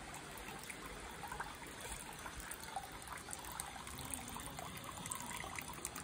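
Water running from the dragon-shaped spout of a temple purification basin (temizuya) and splashing into the basin: a steady trickle with many small splashes.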